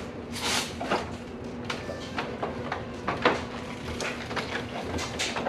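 Hands-on reassembly work: scattered clicks and knocks of tools and parts being handled, with a brief hiss about half a second in and a sharper knock about three seconds in.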